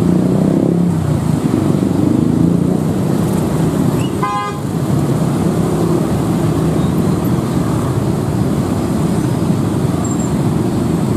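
Motorcycles and a car crossing the tracks at low speed, their engines running together as steady traffic. One short horn beep about four seconds in.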